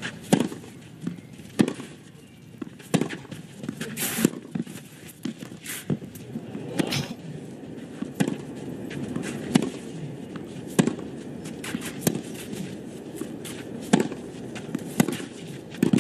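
Tennis balls struck by racquets in rallies on a clay court: a string of sharp pops, about one every second or so.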